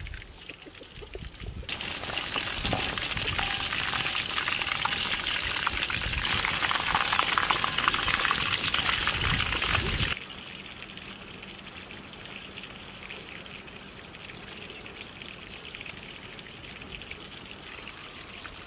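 Chicken pakoras deep-frying in hot oil: a dense crackling sizzle that grows louder about six seconds in, then drops abruptly to a much quieter, steady hiss after about ten seconds.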